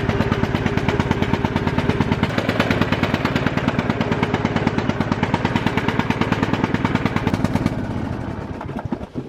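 Lawn mower engine running loud with a rapid, even firing beat, fading out near the end.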